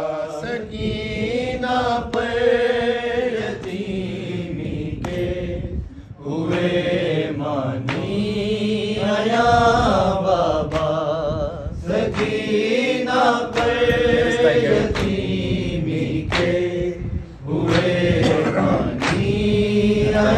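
A man chanting a noha, a mournful Urdu lament, in long wavering sung lines, over a steady thump about once a second.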